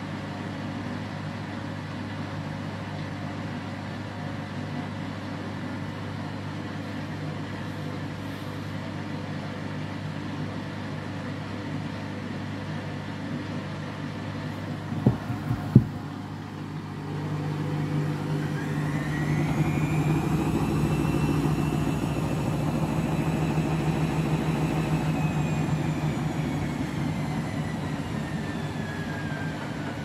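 Front-loading washing machine drum turning with a steady motor hum. Two sharp knocks come about halfway, then the machine gets louder as the drum speeds up toward the spin, its motor whine rising in pitch, peaking and then slowly falling again.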